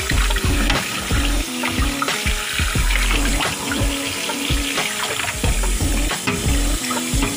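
Tap water running and splashing over raw whole chickens being rinsed in a stainless steel basin, with background music with a deep bass underneath.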